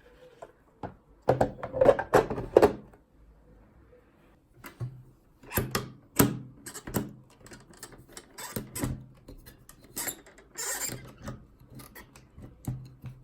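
A series of sharp clicks and knocks from small hard objects being handled, with a brief hiss about ten seconds in.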